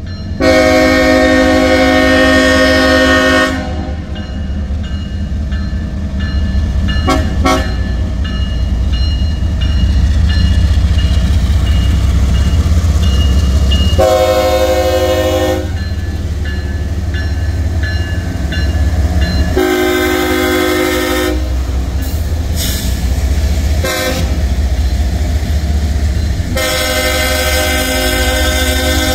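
Lead locomotive of a CSX freight train sounding its multi-note air horn as it approaches the crossing. There is a long blast at the start, a short double toot, then blasts about halfway through, about two-thirds through and near the end. Under the horn, the diesel locomotives keep up a steady low rumble as they pass close by.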